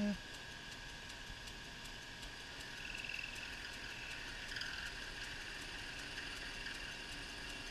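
South Bend 9-inch lathe taking a facing cut with a brazed carbide tool, the tool squealing against the work in a steady, high, thin whine that swells a couple of times partway through.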